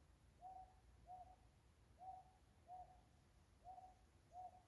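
A cuckoo, which the uploader calls a 'mountain cuckoo' (산뻐꾸기), calling faintly at night. It gives paired low hoots on nearly the same pitch, three pairs, repeated about every second and a half.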